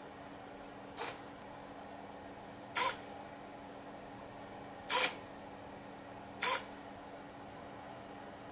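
Small hobby servo motors of a wooden smart-home kit giving four brief, sharp buzzes, one for each app command that moves the door or window; the first is the faintest. A faint steady electrical hum runs underneath.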